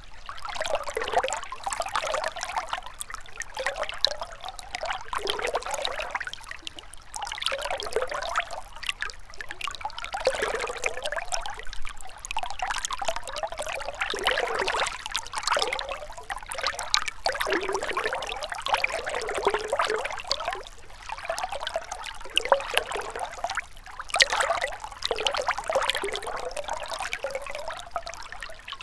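Gentle river water trickling and gurgling over stones, in an unbroken babble that swells and eases every second or two.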